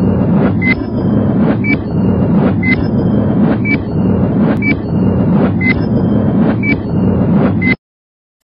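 Countdown sound effect: a short high beep with a click once a second over a steady rumbling whir, cutting off suddenly near the end.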